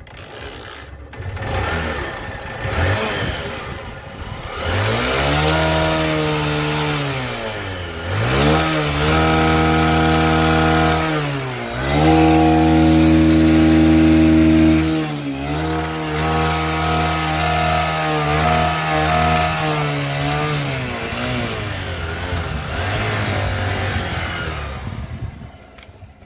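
Honda Shine motorcycle's single-cylinder engine revved hard several times, its pitch climbing and dropping, held high for a few seconds just after the middle. It then settles lower and fades as the bike pulls away near the end.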